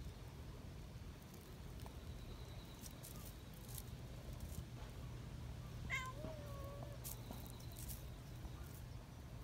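A young cat meows once, briefly and high, about six seconds in, followed at once by a lower, drawn-out call.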